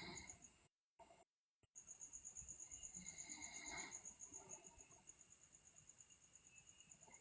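Faint breathing of a sleeping person, one soft breath about three seconds in, over a steady, high, rapidly pulsing cricket-like trill. The sound cuts out to dead silence twice, briefly, in the first two seconds.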